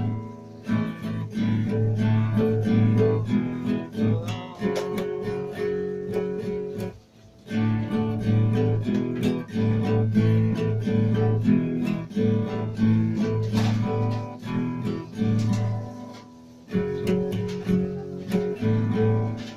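Steel-string acoustic guitar strummed in chords, with short breaks about seven seconds in and again near sixteen seconds.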